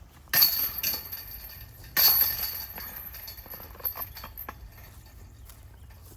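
Disc golf basket chains jingling as putted discs strike them, twice: about a third of a second in and again about two seconds in, each ringing out for about a second.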